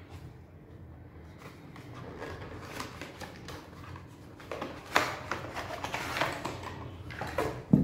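Cardboard box and plastic packaging being handled and rustled as a charger is pulled out of its box, with scattered clicks and taps. The handling is busiest about five seconds in, and there is a thump near the end.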